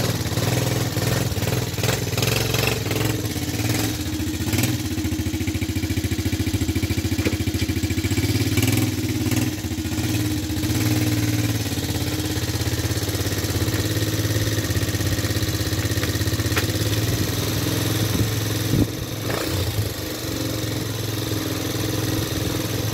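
Small kids' quad ATV engine running steadily at idle with slight changes in speed as the quad is moved a short way. It is freshly serviced and running well, like new.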